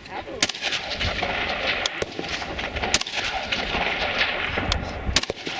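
Rifle shots fired one at a time, about four in all, a second or more apart, over a low steady rumble.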